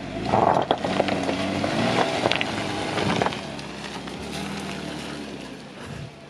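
Jeep Wrangler Unlimited engine revving as the Jeep climbs off a traction board out of mud, with a few sharp clicks, then settling and fading as it pulls away down the trail.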